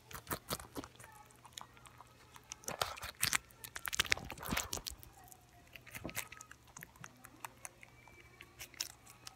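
A rabbit chewing and biting into a hand-held strawberry close to the microphone: irregular, rapid crunchy clicks, busiest around the middle.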